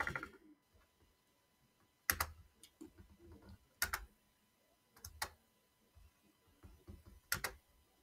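Scattered clicks from a computer mouse and keyboard: about six short, sharp clicks, several in quick pairs, the first about two seconds in.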